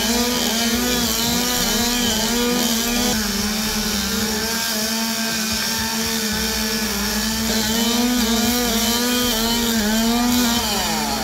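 Two-stroke chainsaw running at full throttle with a steady high engine note that keeps dipping briefly as the chain bites into wood. It is cutting branches off a log in a competition limbing event.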